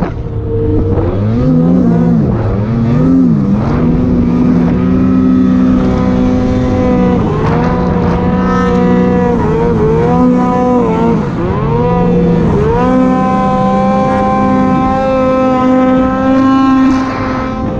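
Two-stroke snowmobile engine running at high revs through deep powder, its pitch dipping and climbing back several times as the throttle is eased off and opened again.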